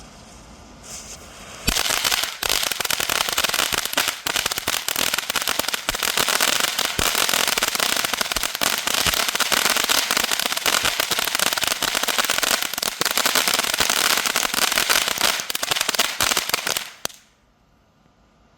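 Small consumer firework fountain going off: a dense, rapid crackling spray that starts abruptly about two seconds in and runs for some fifteen seconds before cutting off suddenly.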